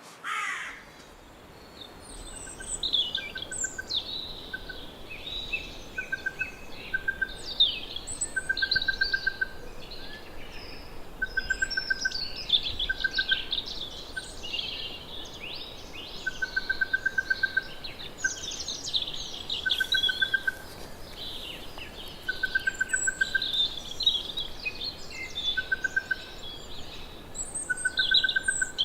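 Many small birds chirping and singing at once, a dense chatter of quick notes, with a short trill on one steady note recurring every second or two beneath it.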